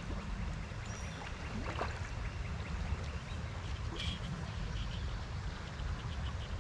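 Steady rush of a flowing trout stream, with a few faint clicks in the middle.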